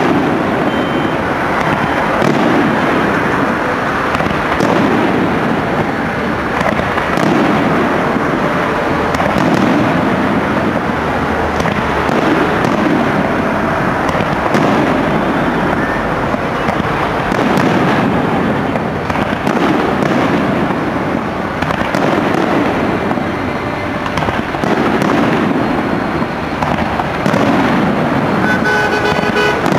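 Aerial fireworks shells bursting one after another, booms and crackles overlapping with no pause.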